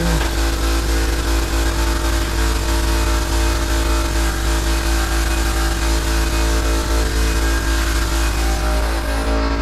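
A motor running steadily: a loud, even hum with a deep rumble underneath and a hiss above it, which thins just before the end.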